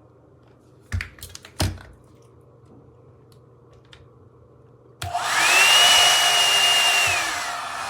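Two sharp clicks, then about five seconds in the Revlon One-Step volumizer hot air brush's blower starts with a rising whine and runs loudly. Near the end the whine drops and the airflow weakens as it loses power, which the owner thinks is a short in the unit.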